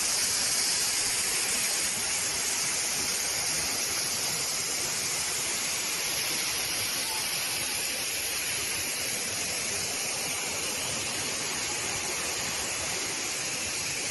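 Waterfall: falling water making a steady, unbroken rushing hiss.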